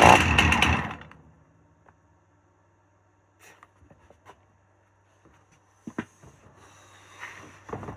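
Two-stroke chainsaw running, then cutting out about a second in. Afterwards only a few faint clicks and some handling noise near the end.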